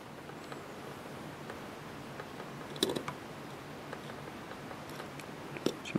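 A few faint clicks as a female jumper wire's connector is handled and pushed onto a header pin of a microcontroller board: one about three seconds in, more near the end, over a low steady hiss.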